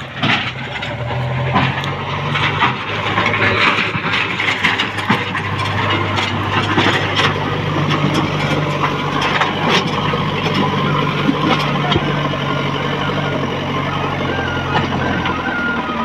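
JCB backhoe loader's diesel engine running under load, its pitch stepping up and down as the throttle changes. The front bucket pushes stone rubble, with many knocks and scrapes of rock against steel, most of them in the first few seconds.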